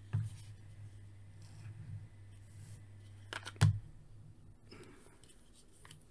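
Hard plastic action-figure armour parts clacking and knocking together as they are handled and fitted, with one sharp knock about three and a half seconds in, over a low steady hum.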